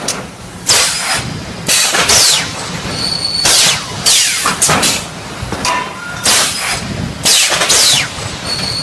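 3D wire mesh panel welding machine working, giving a loud burst of hissing noise about once a second at uneven spacing, several bursts ending in a falling whistle.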